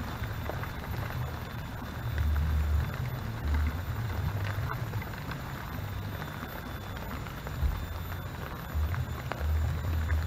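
Footsteps through bamboo leaf litter: irregular low thuds of walking and body movement close to the camera, with scattered faint ticks and crackles.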